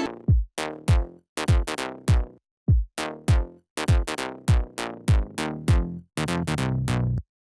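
Background music: a sparse drum-machine beat of deep kick drums that drop in pitch, with short silent gaps between hits. Near the end a held bass note sounds and then cuts off suddenly.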